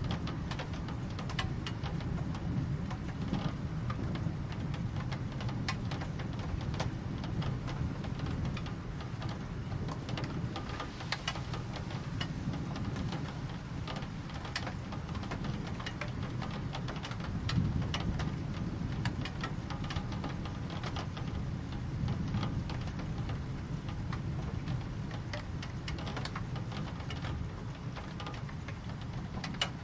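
Steady rain falling, with many separate drops tapping sharply on a surface over a constant low rumble.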